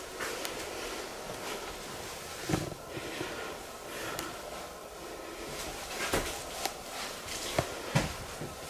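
Footsteps and knocks from a handheld camera being carried through a quiet house, with a few sharper knocks in the second half, over a faint steady hum.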